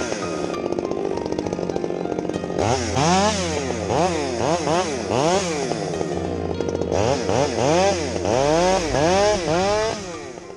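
Chainsaw engine revving up and down over and over, about two rises and falls a second, as it cuts branches from felled conifers, with a steadier stretch early on. The sound fades out near the end.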